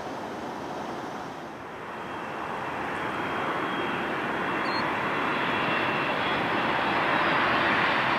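Jet engines of a Southwest Boeing 737-800, CFM56-7B turbofans, running at high power on the runway, typical of a takeoff roll. It is a steady jet rush with a faint fan whistle, growing louder over several seconds and loudest near the end.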